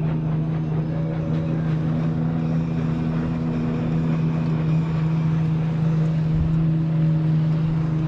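A small fishing boat's outboard motor running at a steady speed, one even hum that holds its pitch, with water and wind noise underneath.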